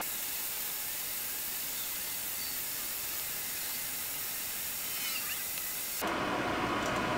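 Creality Ender 3 3D printer with TMC2209 stepper drivers running very quietly: only a faint hiss and soft stepper-motor whines as the print head moves. About six seconds in, the power supply fan cuts in with a steady whir.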